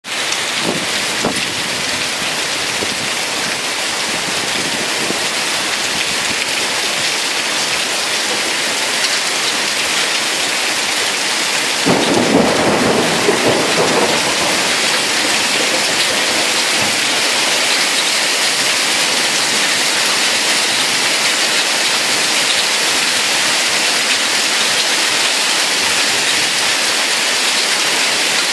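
Heavy rain pouring steadily, with one roll of thunder rumbling for about two seconds nearly halfway through.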